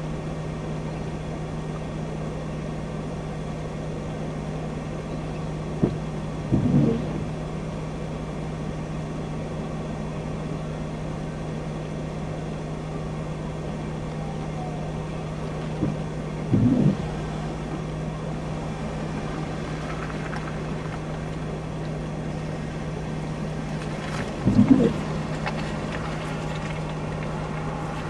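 Steady hum and rumble of a vehicle, picked up by a dash camera inside the cab. It is broken three times, about ten seconds apart, by a click and a brief louder sound.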